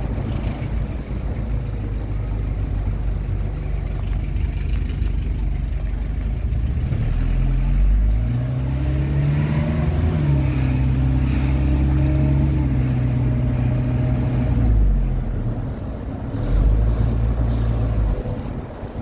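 Car engine and road noise heard from inside a moving car. About eight seconds in, a deeper engine note rises and holds for several seconds, then fades, coming back briefly near the end.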